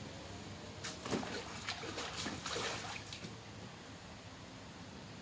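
Shallow water sloshing and splashing in an inflatable paddling pool as a child wades through it: a run of irregular splashes in the first three seconds, then quieter.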